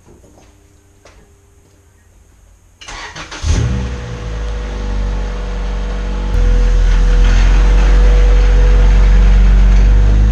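Honda Integra DC2's four-cylinder engine cranked and started about three seconds in, then idling steadily, the idle stepping up in level about halfway through.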